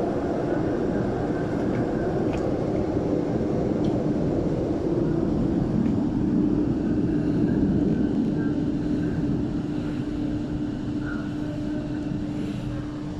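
MTR Island Line M-Train running away down the tunnel: a steady rumble with a low hum, easing off toward the end as the train recedes.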